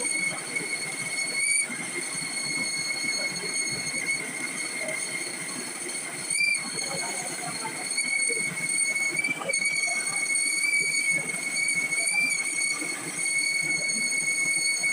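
Lathe boring cut: the single-point boring tool squeals as it cuts the metal, a steady high-pitched whine over a rough scraping noise, broken briefly a few times.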